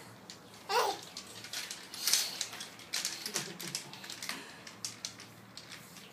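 A toddler's short rising squeal about a second in, then giggling, over scattered light clicks and brief rustles.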